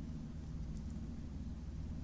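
Quiet room tone: a faint steady low hum with light hiss, no other event.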